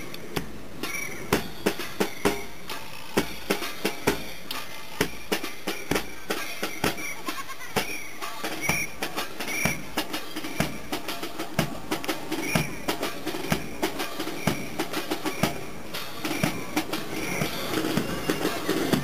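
A drum beaten in a steady march rhythm of about two strokes a second, while a flock of grey domestic geese honks now and then.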